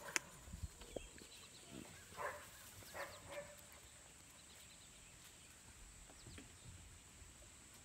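Mostly quiet outdoor background with two faint, brief puppy yips about two and three seconds in.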